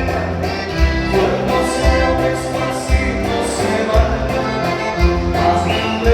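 Music with singing over a steady beat of about one strong bass beat a second.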